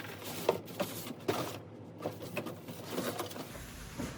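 Fire alarm device parts being handled and unpacked from a box: a scatter of light clicks and knocks as the plastic pieces are picked up and set down.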